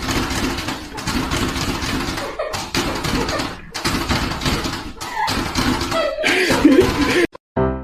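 People's voices and laughter over a loud, noisy background. It cuts off abruptly near the end, and a few piano notes begin.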